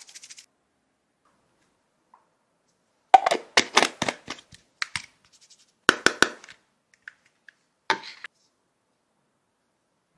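Clear plastic jar and its screw-on plastic lid being handled and twisted: several short runs of sharp clicks and scrapes, starting about three seconds in and coming again around six and eight seconds.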